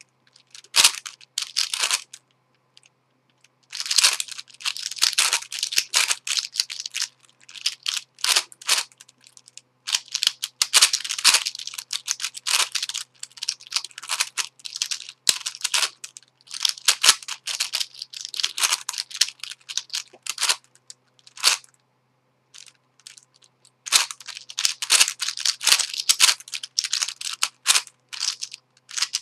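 Plastic layers of a Witeden 3x3x9 cuboid puzzle being turned rapidly by hand: fast runs of clicking, clacking turns, broken by pauses of a second or two.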